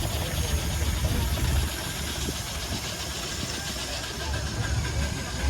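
Steam road engines running as they move through the show ring, under a low rumble of wind buffeting the phone's microphone that eases about a second and a half in and returns near the end.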